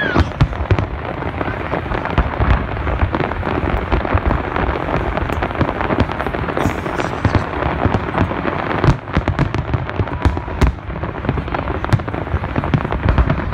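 Large aerial fireworks display: a dense, unbroken barrage of crackling and popping shell bursts over deep booms, with an especially sharp bang about nine seconds in.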